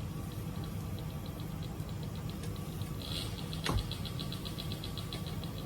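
A steady low engine-like rumble, like a motor idling, with a rapid high chirping repeating several times a second over it and a single sharp click about two-thirds of the way through.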